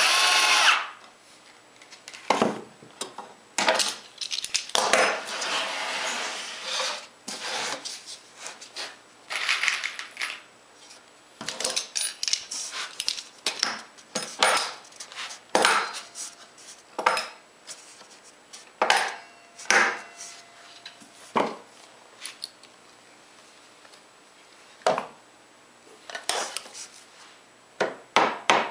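A cordless drill drives a screw into the wooden template frame in a loud burst at the start. It is followed by a string of knocks, taps and scrapes as the wooden pieces are shifted, pressed together and clamped.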